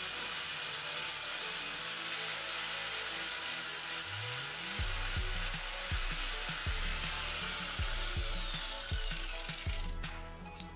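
Angle grinder cutting through an iPhone X held in a vise: a rough grinding hiss under a steady high whine. About seven seconds in, the whine falls away as the grinder spins down.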